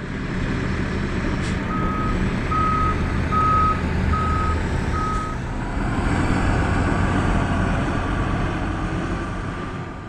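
Heavy diesel equipment engine running steadily while its reverse alarm beeps five times at an even pace, starting about two seconds in.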